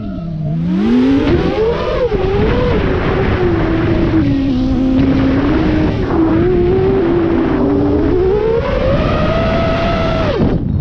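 Brushless motors of an eight-motor FPV freestyle quadcopter, its eight motors driven in pairs off four motor outputs, whining loudly with a pitch that swoops down and up as the throttle changes. The pitch dips deeply just after the start, then climbs and wavers, and drops sharply near the end, over a steady rushing noise.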